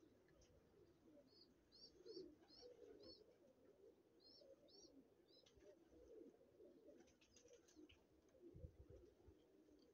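Domestic pigeons cooing softly. In the first half a small bird gives two quick runs of short, high chirps.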